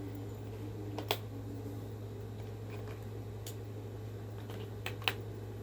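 AA batteries being handled and fitted into a toy's plastic battery compartment: a few light plastic clicks and ticks, two sharper clicks about a second in and near the end, over a steady low hum.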